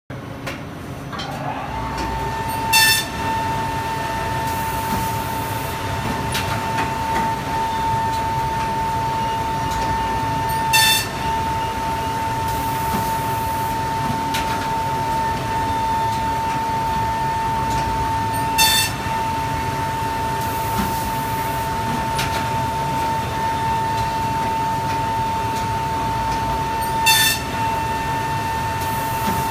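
Heidelberg Eurobind 600 perfect binder running through its binding cycle: a steady mechanical hum with a high, even whine. Four sharp, ringing metallic clacks come about eight seconds apart.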